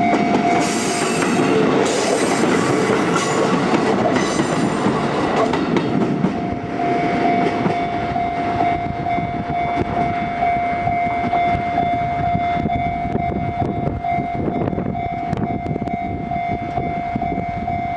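Level-crossing warning bell ringing as one steady tone while a two-car KiHa 11 diesel railcar passes, its wheels rumbling and hissing on the rails. The train noise thins out after about six seconds, and the bell rings on alone.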